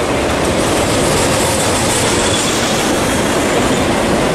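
Intermodal freight train's cars, loaded with highway trailers, rolling past close by: a loud, steady noise of steel wheels on rail.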